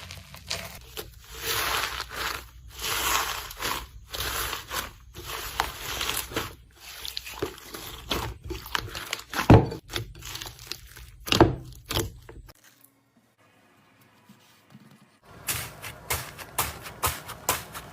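Slime being squished and stretched by hand, making irregular crackling, crinkly pops with a couple of louder squelches. About two-thirds through it goes nearly silent for a few seconds, then the crackling starts again.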